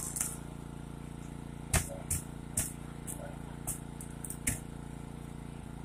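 Steady engine hum of a rescue tool's power unit, broken by about six short, sharp cracks of the car body being cut.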